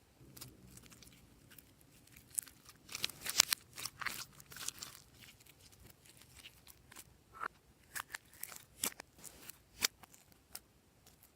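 Glossy slime being worked by hand, giving irregular sticky crackles and pops, in two busy spells a few seconds apart.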